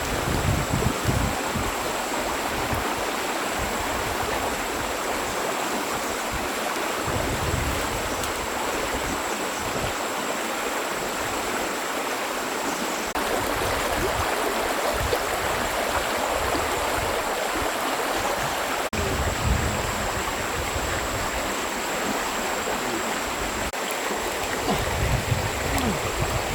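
Stream water flowing steadily, with low gusts of wind buffeting the microphone now and then.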